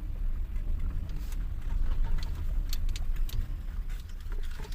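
Low, steady rumble of a vehicle moving slowly, with a few light clicks and ticks.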